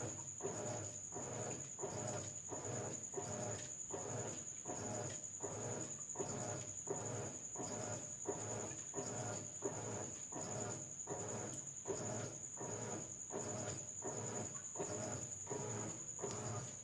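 GE King Capacity 15.1 kg top-load washing machine agitating the load during its rinse, the wash action reversing in an even rhythm of about two strokes a second, with a faint steady high whine throughout.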